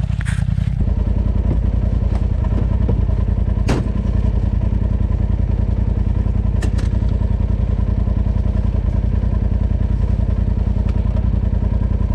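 Polaris RZR Turbo side-by-side's turbocharged twin-cylinder engine running with a steady low throb, its note getting fuller about a second in as the ride gets under way. A few sharp knocks from the vehicle come through over it.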